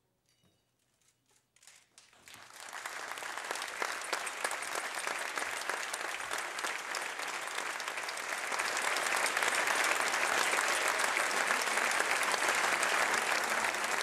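Audience applauding: a few scattered claps, then from about two seconds in the applause swells into a full ovation that grows louder and holds steady.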